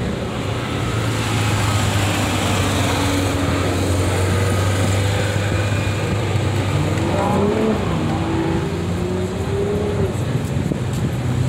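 A car engine running with a steady low rumble.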